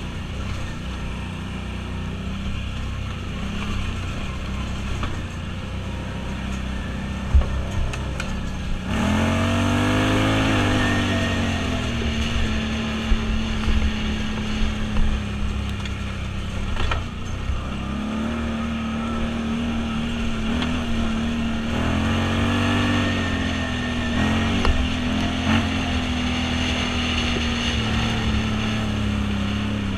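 Off-road vehicle engine running steadily while driving, with the revs climbing and easing off a few times. Scattered sharp knocks come through, the kind made by a vehicle jolting over rough ground.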